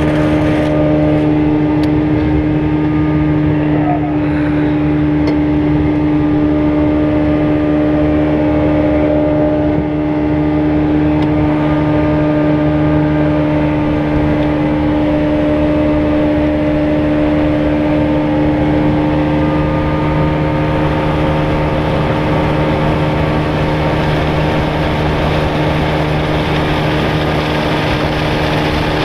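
Fishing boat's outboard motor running steadily at a constant pitch while the boat is under way, over a steady hiss of wind and water.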